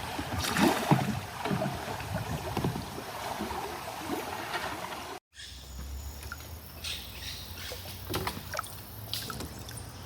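Water lapping and splashing around a bamboo raft on a river, with a few short knocks. The sound breaks off for a moment about five seconds in and comes back quieter.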